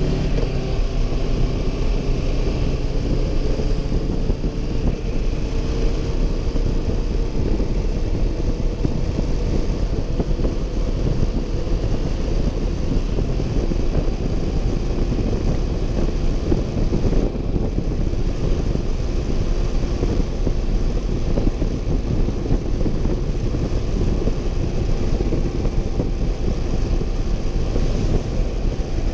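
Motorcycle riding along at road speed: the engine runs steadily under heavy wind rush over the bike-mounted camera's microphone. The engine note climbs slightly in the first few seconds and then holds.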